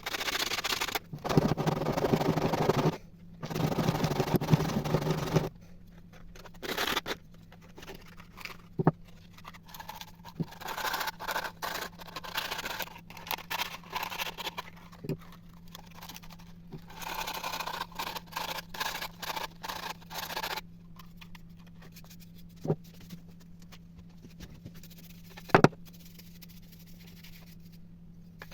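Hand scraping and rubbing on coffee grinder parts during restoration. The strokes are loudest for the first few seconds, then come in shorter bursts. After that there are two sharp knocks, over a steady low hum.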